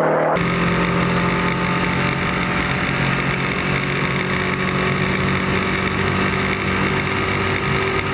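Lancia Delta Integrale rally car's turbocharged four-cylinder engine running hard at a fairly steady pitch. The sound cuts in abruptly a moment in.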